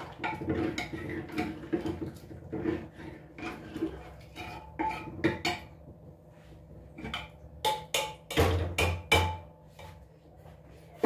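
Metal kitchen utensils and dishes clattering: irregular knocks and clinks, some with a short metallic ring, with a cluster of louder strikes near the end.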